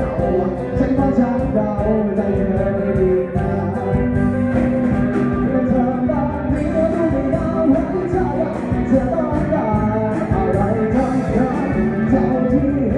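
A live band playing a song with a singer, and drums keeping a steady beat.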